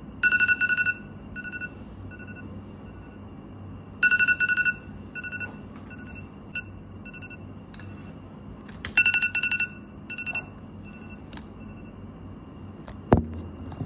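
Tablet alarm beeping: three loud clusters of rapid high beeps about every four to five seconds, with fainter single beeps between them, sounding the 5 a.m. wake-up. A single thump near the end.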